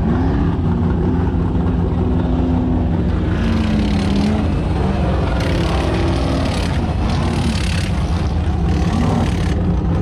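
Off-road race car engines running: a steady low drone with an engine note that rises and falls, and several roughly one-second bursts of harsher noise.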